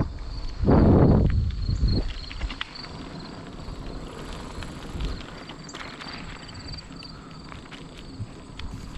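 A loud rush of wind on the microphone of a camera moving along the road, lasting from the start to about two seconds in. Under it and after it, insects keep up a steady pulsing chirp, with scattered light clicks and rattles.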